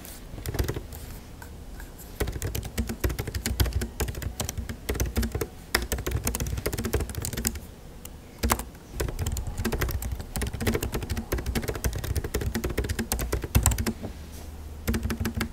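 Typing on a 14-inch MacBook Pro's built-in scissor-switch keyboard, picked up close by a clip-on microphone: quick runs of key clicks, with short lulls about two seconds in, around eight seconds in and near the end.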